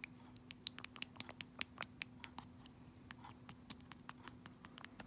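African grey parrot eating from a baby food pouch, its beak and tongue working at the plastic spout: a quick, irregular run of sharp little clicks and smacks.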